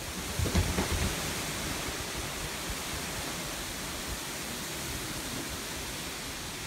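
Steady hiss of hurricane wind and rain in the trees. Low rumbles of wind hitting the microphone come in the first second, then it settles into an even rush.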